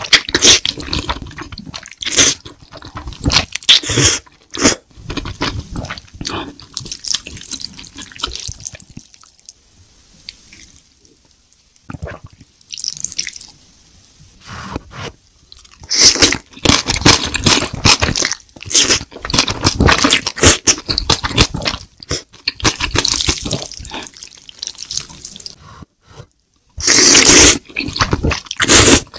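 Close-up wet eating sounds of spicy Korean noodles being slurped and chewed, with many irregular smacking clicks. It goes quieter for several seconds in the middle and is loudest near the end.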